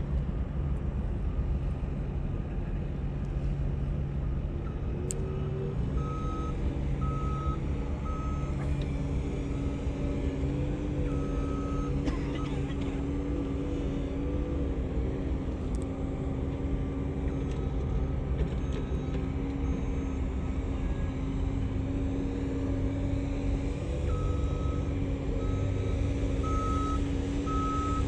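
Diesel engine of a heavy construction vehicle running steadily, with a reversing alarm beeping in runs that become steady near the end.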